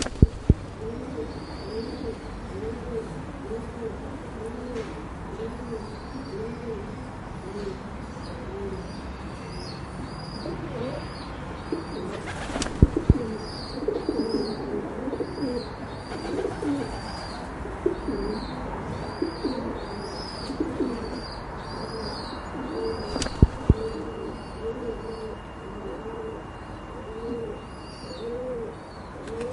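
Several pigeons cooing, low rolling coos overlapping and repeating without pause, with rows of short high-pitched chirps above them. A few sharp knocks stand out, near the start and around the middle.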